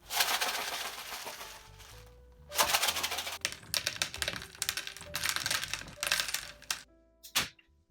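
Rapid clattering clicks like typing, in two long runs with a short break between, over faint background music, then a single sharp knock near the end.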